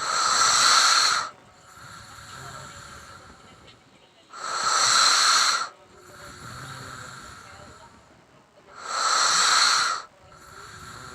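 A sleeping man snoring into a close microphone: three loud, hissing snore breaths, each a bit over a second long and about four and a half seconds apart, with quieter breaths between them.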